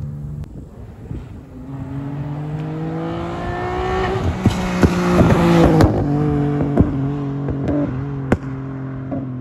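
Nissan Maxima 3.5 V6 through an ISR single-exit exhaust accelerating toward and past the listener. The engine note rises in pitch and is loudest midway, then a scattering of sharp exhaust pops follows as the driver tries to make it spit flames.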